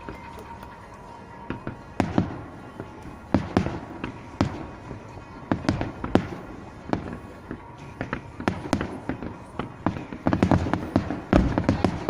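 Aerial firework shells of a Japanese fireworks display bursting: separate sharp bangs every half second to a second, thickening about ten seconds in into a rapid volley of bangs close together.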